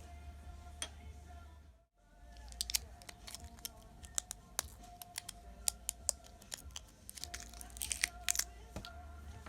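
Irregular small sharp clicks and scrapes of hand work on a wristwatch during a battery change: the tool, case back and small parts tapping and rubbing. The clicks come thick and fast from about two and a half seconds in until near the end.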